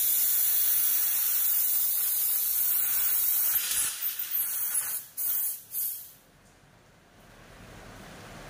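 High-pressure compressed air hissing out of a paintball regulator setup. The hiss is steady for about three and a half seconds, then sputters in a few short bursts and stops about six seconds in.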